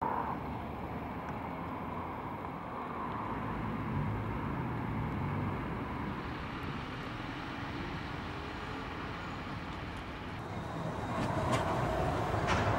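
Urban road traffic ambience: a steady hiss of passing vehicles. It grows louder about eleven seconds in, with a few sharp clicks.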